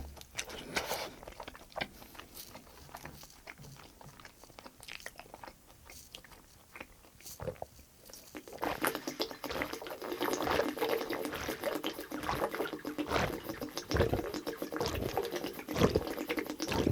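Close-miked eating sounds: chewing with small clicks and knocks, busier and denser about halfway through.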